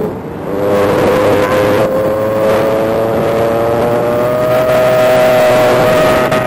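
Electric motor and five-blade propeller of an E-flite Spitfire Mk XIV 1.2m RC plane, heard from a camera on the plane: a steady whine that gets louder about a second in and then slowly rises in pitch as the throttle opens, over a rush of air.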